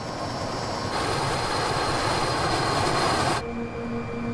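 Mi-8 helicopter in flight: steady, dense noise of its twin turbine engines and rotor, growing louder about a second in. Near the end it cuts off suddenly to a quieter steady hum with an evenly pulsing tone.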